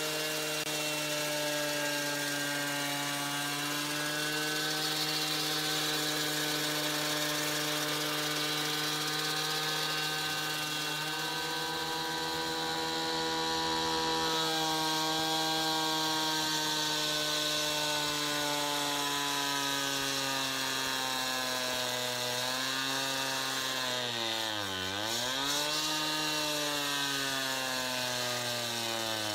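Two-stroke gas cut-off saw (concrete saw) running at high speed while its blade cuts through a concrete slab, a steady engine note with a gritty hiss. Near the end the engine speed drops sharply and picks back up twice.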